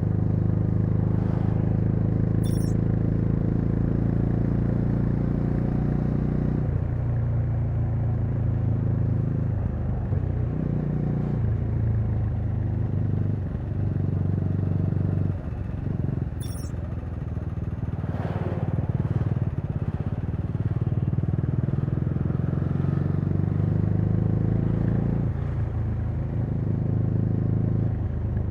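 Bajaj Dominar 400's single-cylinder engine running under way. Its note holds steady, drops off about a quarter of the way in, dips several times through the middle, and picks back up near the end.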